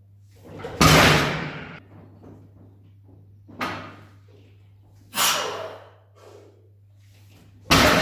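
Heavily loaded deadlift barbell with Eleiko plates being set down on the gym floor between reps: four heavy thuds, each with a short clanging decay. The loudest come about a second in and near the end.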